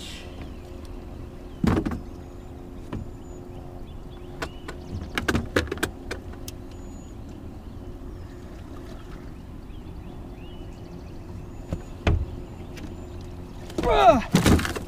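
Scattered knocks and thumps against the boat's hull while a giant catfish is hand-lined alongside. Near the end a loud burst of splashing and banging as the fish is hauled over the gunwale into the boat.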